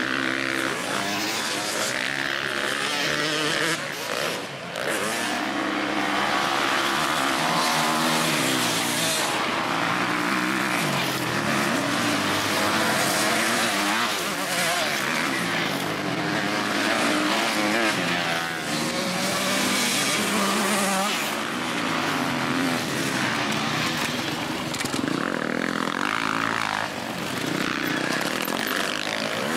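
Several motocross bikes racing, their engines revving up and down and overlapping one another.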